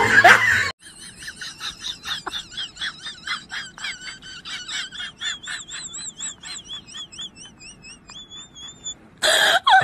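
An animal's high-pitched chirping calls, repeated a few times a second, ending in a longer warbling note. Loud voices and laughter at the very start cut off abruptly.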